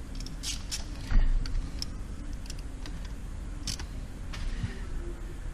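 Scattered small clicks and taps from hand work on wiring connectors and terminals, with a dull thump about a second in.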